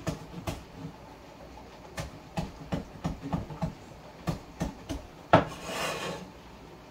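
Knife chopping shallot on a cutting board: a string of short knocks about three a second, the loudest just after five seconds in, followed by a brief scrape.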